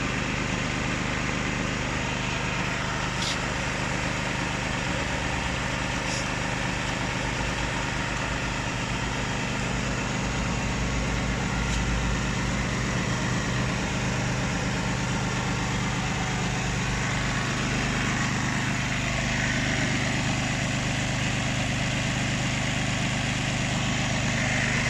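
Small Chinese-made generator's engine running steadily.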